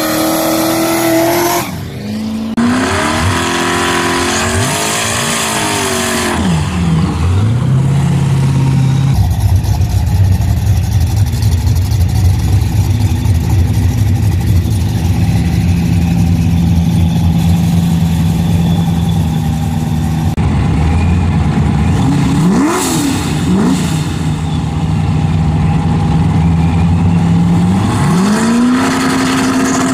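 Boosted drag-race engines at the starting line: the ProCharger-supercharged small-block Ford V8 of a Ford Fairmont and a boosted Camaro being revved, with repeated rising and falling throttle blips in the first few seconds. Through the middle they hold a steady engine speed for about ten seconds, then come more quick blips and a final rise in revs near the end.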